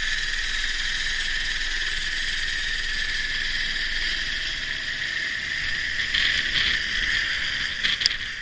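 Helicopter turbine whine and rotor running at close range, steady, then easing a little as it lifts off and flies away near the end. A sharp click comes about eight seconds in.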